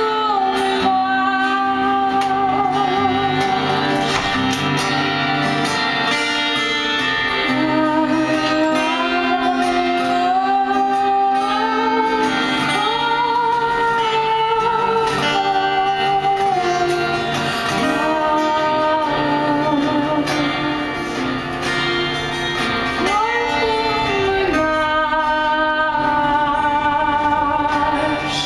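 A woman singing while playing an acoustic guitar, her melody moving through long held notes with vibrato.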